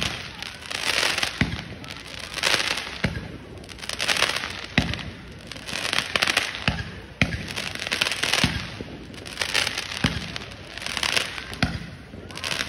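Aerial fireworks going off in quick succession: sharp booms about once a second, each followed by a hissing crackle as the shells burst.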